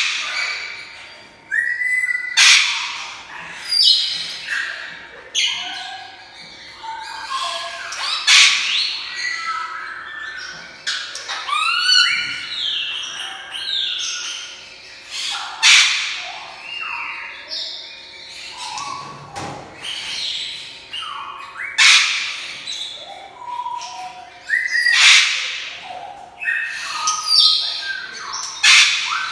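African grey parrot calling: a running string of short whistles, some rising or falling, broken every few seconds by loud, harsh squawks.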